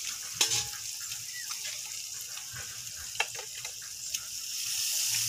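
Hot oil sizzling around boiled eggs frying in a large kadai, with a few sharp clinks of the ladle against the pan. The sizzle grows louder near the end as ladlefuls of pepper masala go into the hot oil.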